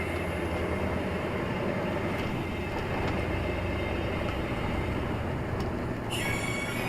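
A heavy vehicle's engine running steadily as it drives, with a constant low hum and road rumble.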